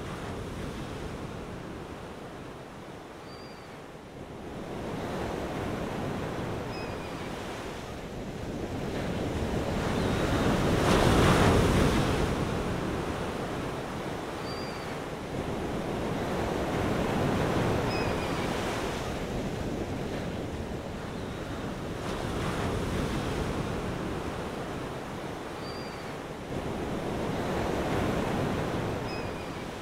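Ocean surf: rushing waves that swell and fade every several seconds, loudest about a third of the way in, with a few faint short high chirps.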